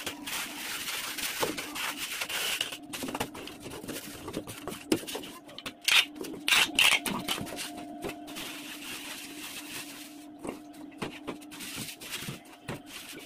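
Hand-packing a cardboard parcel: box flaps and cardboard rustling and knocking, then packing tape pulled off a handheld tape dispenser in loud screeching rips about six seconds in, followed by bubble wrap crinkling.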